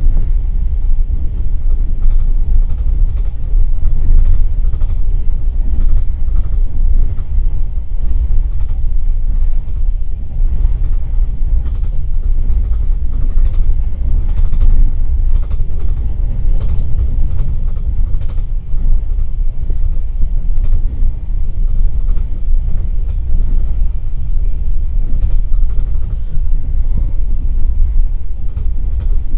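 Passenger train running at speed, heard from inside an open-plan sleeper car: a steady, loud, low rumble of the wheels on the track, with faint irregular clicks and knocks.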